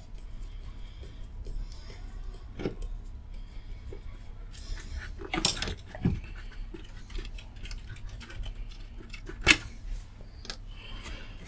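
Screwdriver undoing the mounting screws of a 10-inch speaker driver in its cabinet: quiet handling with a few sharp metallic clinks and knocks, the loudest near the end.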